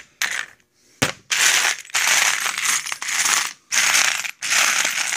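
Small metal sewing machine attachments and presser feet clinking and rattling in bursts as they are rummaged through in a box, with a sharp click about a second in.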